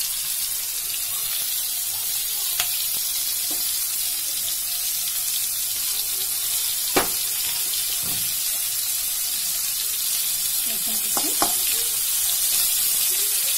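Chopped ginger and garlic sizzling in hot oil in a kadai with pieces of fried chicken, a steady hiss. A few sharp clicks of the spatula against the pan, the loudest about seven seconds in.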